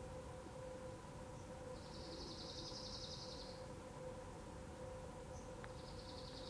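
Faint outdoor background with a high, rapidly pulsed trill heard twice, once about two seconds in lasting nearly two seconds and again near the end, over a faint steady hum.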